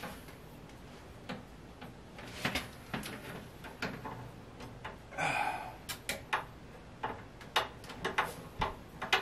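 Scattered small clicks and taps of a cable being handled and plugged into a wall-mounted device, with a brief rustle about five seconds in.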